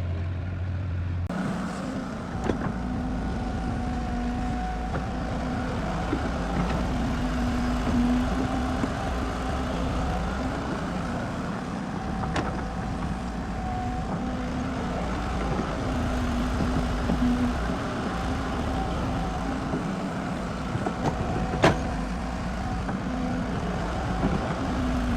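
Diesel engine of a heavy working vehicle such as a tractor running steadily, changing to a fuller engine sound with a steady drone about a second in. A few sharp knocks cut through it, the loudest near the end.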